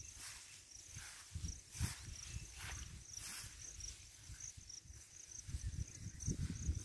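Insects chirping in a grassy field: a thin, high chirp repeated a few times a second, over a low rumble, with a few brief rustles in the grass.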